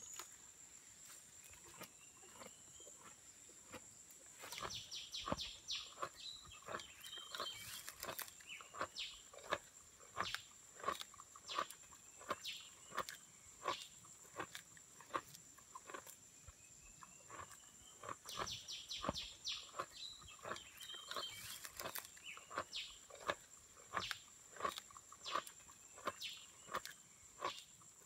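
Sumatran rhino chewing leaves: a regular run of crunching chews, about three every two seconds, that grows louder about four seconds in, over a steady high-pitched drone.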